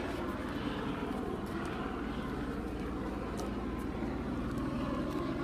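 Steady drone of a helicopter circling overhead.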